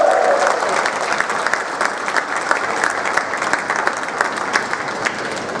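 Crowd applauding: many quick claps blending into a steady clatter that eases off a little.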